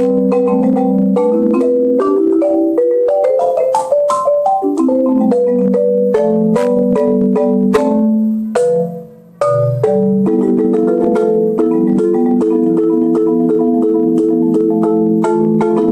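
Marimba played with mallets: a run of struck, ringing notes moving up and down. There is a short break about nine seconds in, then an even, repeated pattern of notes.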